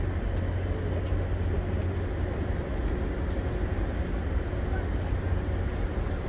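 Steady low engine rumble with wind on the microphone as a very large container ship passes close by under way.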